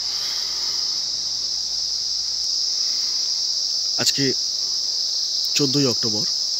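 Steady, high-pitched insect chorus, crickets or similar, going on without a break.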